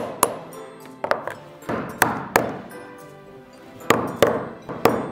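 Light hammer taps seating a ball bearing into a 3D-printed plastic wheel hub: several sharp knocks with a short metallic ring, some in close pairs, over background music.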